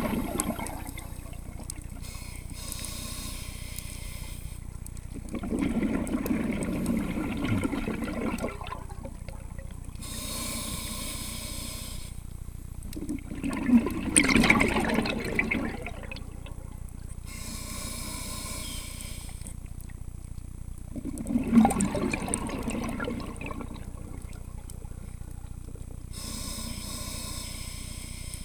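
Scuba diver breathing through a regulator underwater. A high hiss of inhaling through the demand valve alternates with a lower bubbling rush of exhaust bubbles, one breath cycle about every seven to eight seconds.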